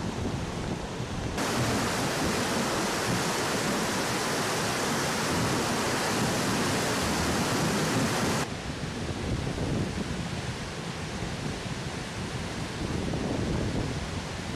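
Swollen river floodwater rushing, a steady noisy wash. It turns abruptly louder and brighter about a second and a half in and drops back just as suddenly about eight and a half seconds in.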